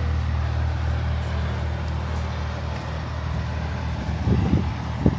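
A motor vehicle's engine running steadily close by, a deep even hum. A few short low thumps come near the end.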